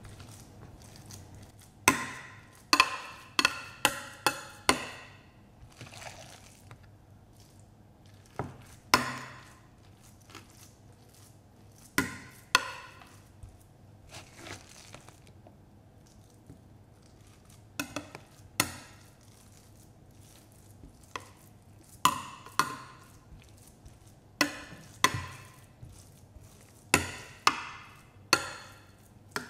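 Metal spoon tapping and clinking against a glass baking dish and a plastic mixing bowl as raw ground beef is scooped out and pressed flat. The taps are irregular and sharp, some in quick runs of several.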